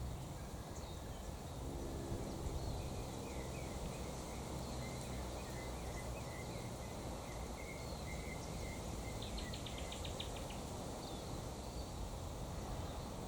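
Faint outdoor ambience with small birds chirping and twittering softly. About two-thirds of the way through comes a short, rapid ticking trill.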